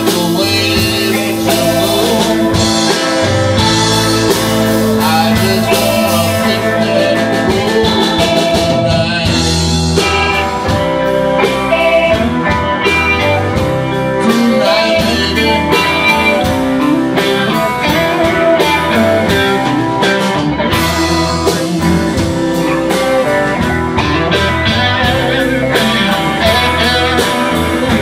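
A blues band playing live: two electric guitars, an electric bass and a drum kit keeping a steady beat.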